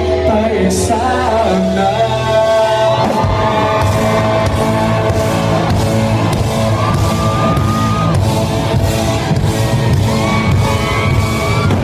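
A Thai pop-rock song with a singing voice holding long, gliding notes; about three seconds in, a full band of drums, bass and electric guitar comes in and plays on under the voice.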